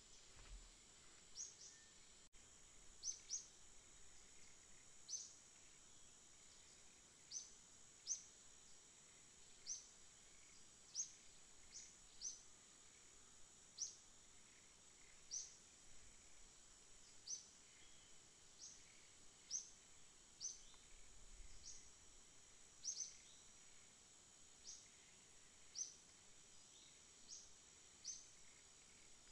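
Faint, high-pitched short chirps from a small bird, repeated about once a second at uneven spacing, over a steady faint high hiss.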